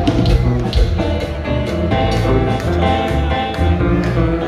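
Live kompa band playing without vocals: bass, guitar and drums with a steady beat.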